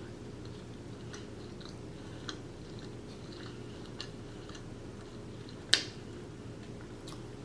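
A person chewing food close to the microphone, with small scattered wet mouth clicks and one sharper click about six seconds in, over a faint steady hum.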